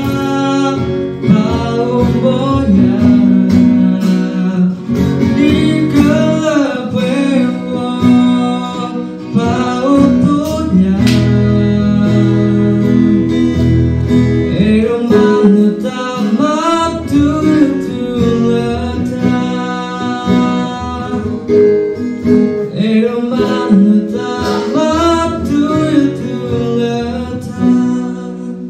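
A young man singing a song into a microphone, accompanied by an acoustic guitar; the music fades out near the end.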